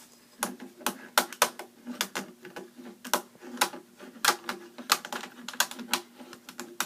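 Rubik's Cube being twisted by hand: the plastic layers clicking and clacking in quick, irregular turns, several a second.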